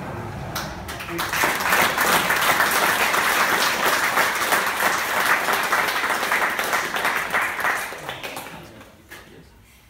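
Audience applauding: the clapping swells about a second in, holds steady, then dies away near the end.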